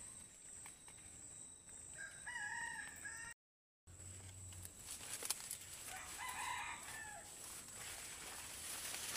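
A rooster crowing twice, once about two seconds in and again near the seven-second mark, over a steady high-pitched hum.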